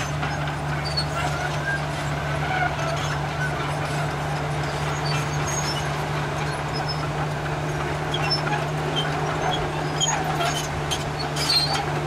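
Komatsu crawler bulldozer running steadily under load as it pushes dirt, with a constant low engine hum and scattered faint high squeaks.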